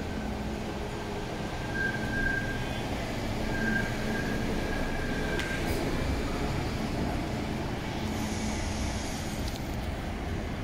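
A city tram running along street rails with a steady rumble, its wheels squealing thinly for a few seconds from about two seconds in.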